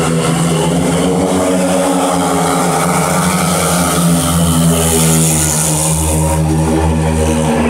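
Four speedway motorcycles, 500 cc single-cylinder methanol engines, racing in a pack around the shale track, a steady engine note at full throttle.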